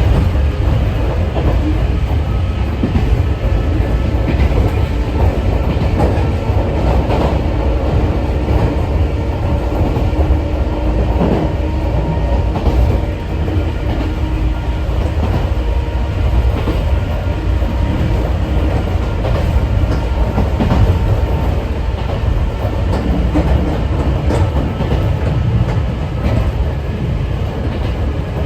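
On board a Sangi Railway 801 series (ex-Seibu 701 series) electric train at speed: steady rumble of wheels and bogies, occasional rail-joint clicks, and the steady whine of its MT46-style traction motors.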